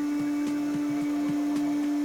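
Inoue Seisakusho vacuum planetary mixer running, a steady motor hum with a light click about once a second.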